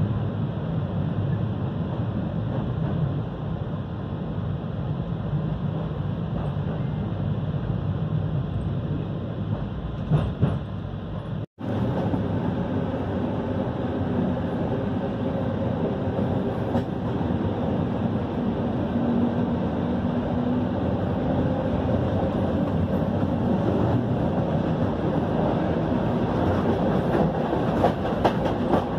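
Train running noise heard from on board, a steady rumble with a few clicks from the wheels. It breaks off for an instant about eleven seconds in, then carries on much the same.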